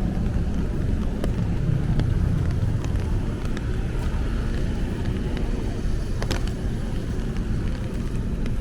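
Rainy city street ambience: a steady low rumble of traffic, with a vehicle's tyres hissing past on the wet road about halfway through. Scattered sharp taps of raindrops stand out against it.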